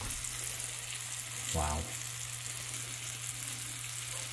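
Crappie fillets coated in cornmeal and flour sizzling steadily in hot frying oil.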